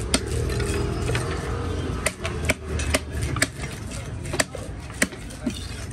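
Knife blade striking a wooden chopping block in sharp knocks at irregular intervals as fish flesh is cut into pieces, over a steady low background hum.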